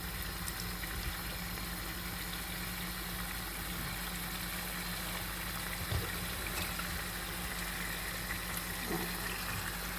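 Steady hiss of chicken cooking in sauce in a pan, with a constant low hum underneath and one light knock about six seconds in.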